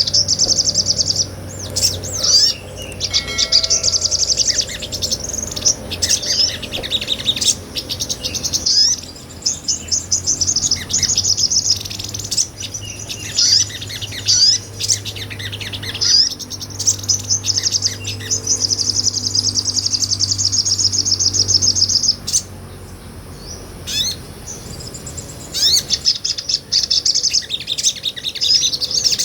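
Sogon (olive-backed sunbird) singing energetically: long runs of rapid, high-pitched twittering trills broken by short pauses, over a faint low steady hum.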